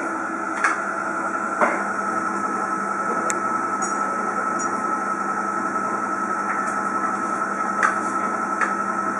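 Steady machine hum with a constant whine, broken by a few short, sharp clinks or knocks.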